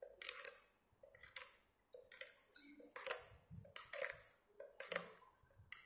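Steel spoon clinking against the sides of a glass bowl as sugar is stirred into watermelon juice: light, ringing clinks, about two or three a second.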